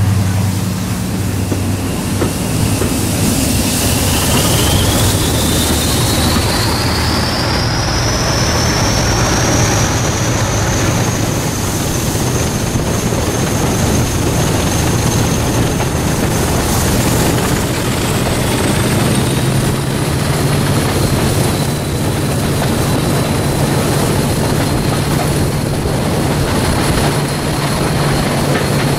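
Class 55 Deltic diesel locomotives' Napier Deltic two-stroke opposed-piston engines running under way, with a steady low drone and wheel and rail noise. A high whine rises over several seconds early on, then holds steady.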